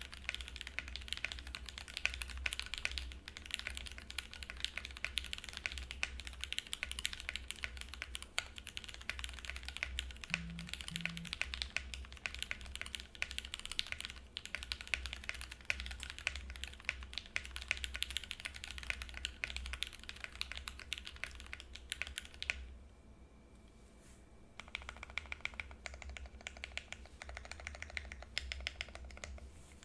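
Typing on a Think6.5 V2 mechanical keyboard with Cherry-top H1 switches on an FR4 plate: a dense, continuous clatter of keystrokes that breaks off for about two seconds near three-quarters of the way through, then resumes more sparsely.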